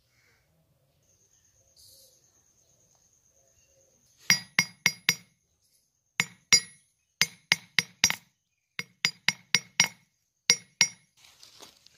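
Hammer striking an iron wire on a steel anvil block: about seventeen sharp, ringing metallic blows in quick runs of two to five, beginning about four seconds in.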